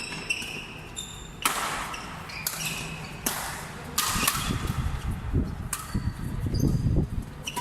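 A rally in a racket game: a series of sharp racket hits, about one a second, as players smash the ball or shuttle back and forth.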